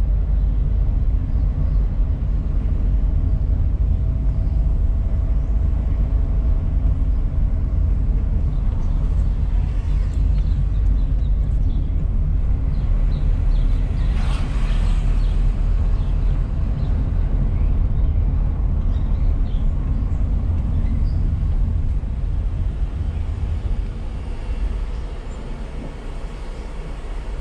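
Car interior driving noise: a steady low rumble of engine and tyres heard inside the cabin, with a brief hiss about halfway through. The rumble gets quieter near the end.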